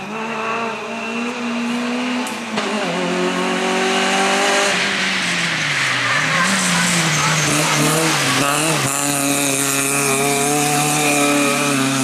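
Peugeot 106 rally car's four-cylinder engine at high revs on a tarmac stage, with tyre squeal through a bend midway. Its pitch dips and climbs a few times past the middle, then holds steady as it carries on.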